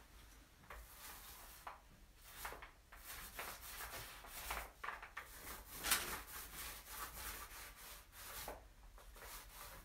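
Paint roller being worked back and forth over a countertop freshly coated with gritty stone-coating paint, pressing the stone flecks flat: a run of faint, irregular rubbing strokes, the loudest about six seconds in.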